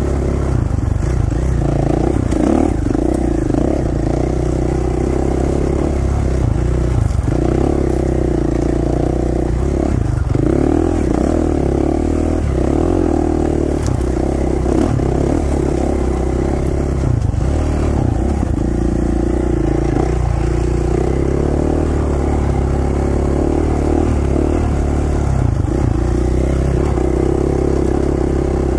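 KTM 450 XC-F single-cylinder four-stroke dirt bike engine, heard from the rider's helmet, running at moderate revs as it is ridden along a trail, the pitch rising and falling constantly with the throttle.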